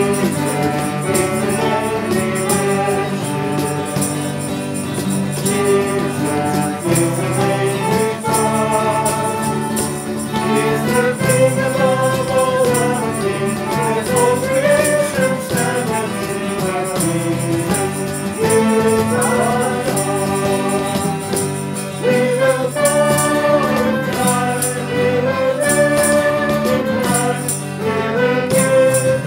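Worship song sung by a group of voices with instrumental backing and light percussion keeping a steady beat.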